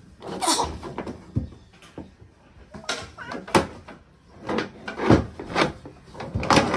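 A baby's hands slapping and patting the tops of small plastic folding tables: about eight irregular knocks, some louder than others.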